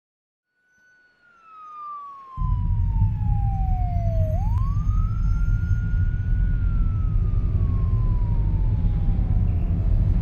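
Police siren wailing: one tone that fades in, slides slowly down, swoops back up about four seconds in and then slides down again. A heavy low rumble cuts in about two seconds in and is the loudest sound from then on.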